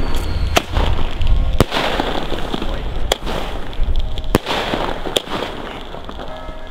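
Nico 'The Outlaw' firework battery firing its first shots: about five sharp launch reports, roughly a second apart.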